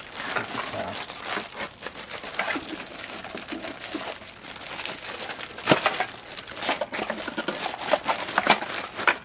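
Thin plastic bag crinkling and crackling as it is handled and pulled off a trimmer guard, with louder crackles about six seconds in and again near the end.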